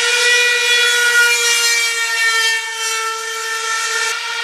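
A loud, steady warning tone held at one pitch, with a rushing hiss underneath that drops about four seconds in.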